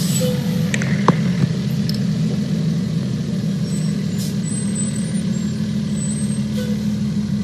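Fire engine's diesel engine idling, a steady low drone, with a few faint clicks and knocks.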